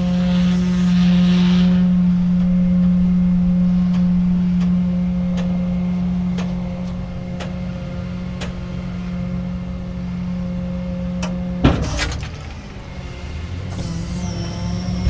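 Rollback tow truck's hydraulics running under engine power with a steady hum, a few clicks and creaks over it, as the car is unloaded. About twelve seconds in the hum stops with a sharp clunk.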